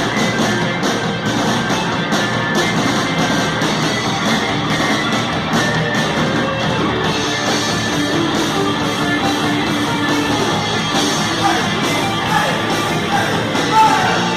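Heavy metal band playing live, with electric guitars, as one continuous loud wall of sound. It sounds thin, with almost no deep bass.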